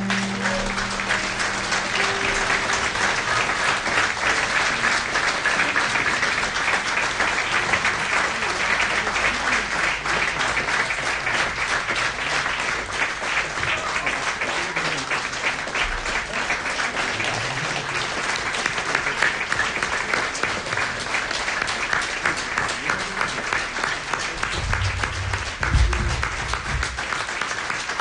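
Audience applauding steadily at the end of a song, as the final piano chord dies away at the start. A brief low thump is heard near the end.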